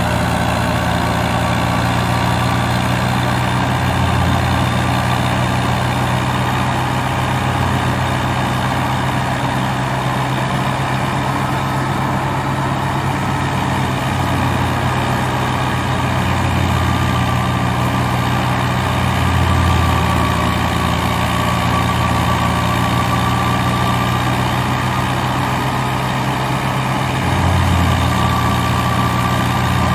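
New Holland Fiat 640 tractor's four-cylinder diesel engine running steadily under load, driving a wheat thresher through its PTO, the thresher running along with it. A steady drone carries a faint wavering whine, with a few brief low swells.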